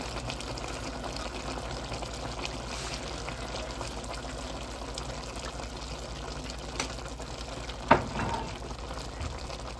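Pork igado stew simmering in an uncovered pan, a steady bubbling hiss, with one sharp knock about eight seconds in.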